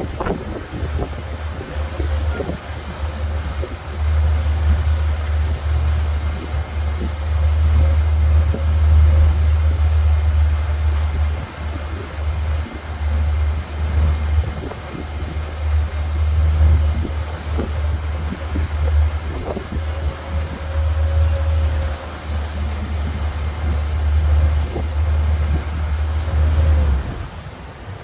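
A boat running under way, with a heavy, uneven low rumble from its motor and wind buffeting the microphone. A faint steady whine sits above the rumble, and there are scattered small knocks. The rumble drops away about a second before the end.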